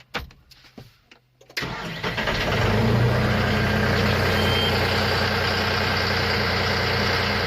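John Deere tractor's glow-plug diesel engine starting: it catches suddenly about a second and a half in, picks up briefly, and settles into a steady idle.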